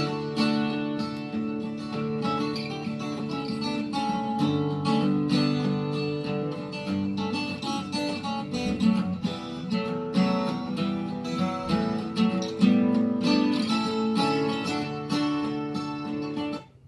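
Acoustic guitar music with no singing, played back through repaired Sansui SP3500 speakers; it starts just after a short pause and drops away shortly before the end.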